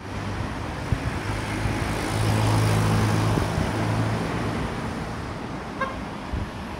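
Street traffic: a passing vehicle's low engine hum swells to its loudest about two to four seconds in and then fades, with a short beep near the end.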